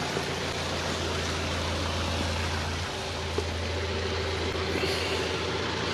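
An engine idling steadily, a constant low hum under a steady hiss, dipping slightly about halfway through.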